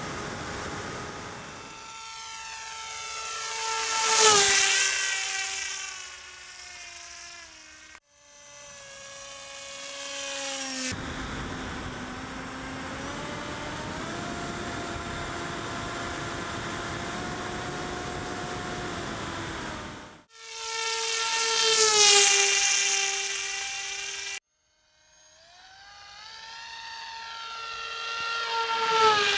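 Brushless electric motor and propeller of a Finwing Penguin RC plane whining as it makes fast low passes, three times. Each pass swells to a loud peak with the pitch dropping as it goes by. In between, a steadier motor whine steps up and down in pitch as the throttle changes, and the sound cuts off abruptly several times.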